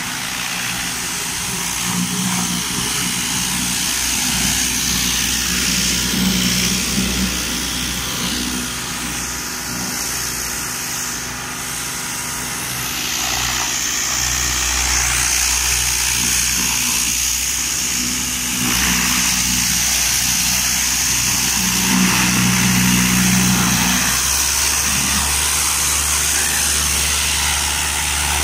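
A high-pressure washer running: the steady hiss of the water jet spraying against a car, growing louder at times, over the steady low hum of the washer's motor and pump.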